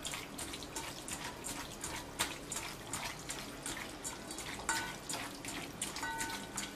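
Raw chicken pieces being hand-mixed with a wet marinade in a stainless steel bowl: quiet, irregular squelches and small wet clicks as the meat is squeezed and turned.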